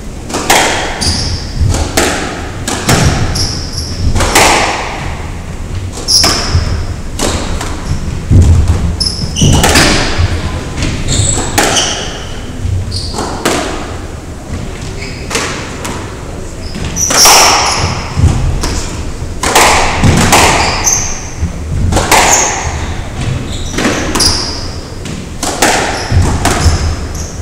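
Squash rally: the ball cracking off the rackets and the court walls about once a second, each hit echoing in the hall, with sharp squeaks of shoes on the hardwood floor between the shots.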